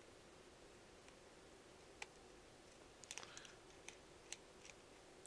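Faint scattered clicks of a small screwdriver and metal phone parts being handled while an iPhone 7 Plus is taken apart, against quiet room tone: a single click about two seconds in, then a quick cluster and a few more over the next couple of seconds.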